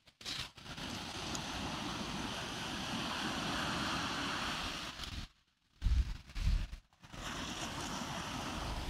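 Steady noise of strong wind and surf on an open beach. It cuts out sharply twice in the middle, and low wind buffets hit the microphone about six seconds in.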